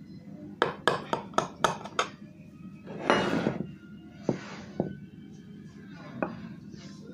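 A knife tapping and clicking against the bottom of a glass baking dish while cutting through tiramisu: a quick run of about seven sharp clicks, then two longer scraping strokes and one more click near the end.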